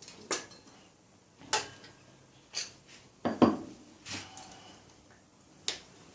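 Metal hand tools and engine parts clinking and clanking, about six separate knocks with short metallic ringing, the loudest about three and a half seconds in, as a motorcycle engine is being taken apart by hand.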